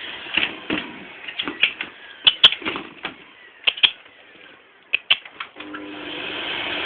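A vacuum cleaner's running dies away, followed by a string of sharp, irregular clicks and knocks as a German shepherd goes at the vacuum. Near the end the vacuum's motor starts up again with a hum that grows louder.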